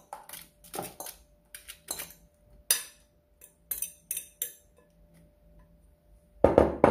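Metal fork scraping and clinking against a glass bowl as seasoned prawns and crab legs are tipped out onto foil, in a series of short clicks and scrapes. A louder knock comes near the end.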